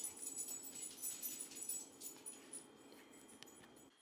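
A dog's noises with quick clicks and rattles, cutting off just before the end.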